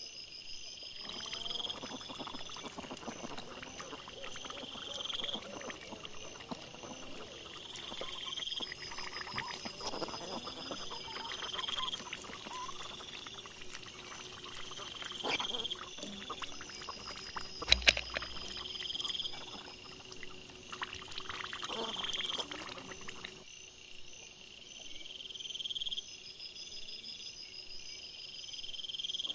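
Wild boar and piglets foraging, their rooting, crunching and short grunts played back sped up. Under them an insect chirps in an even rhythm about every two seconds, and one sharp knock stands out about two-thirds of the way in. The boar sounds fall away near the end, leaving the insect.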